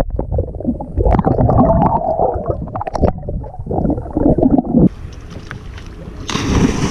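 Underwater lake sound picked up with the microphone submerged: muffled gurgling and bubbling water, with all the higher sound cut off. About five seconds in the sound switches to open air, and near the end a loud, steady rushing noise starts.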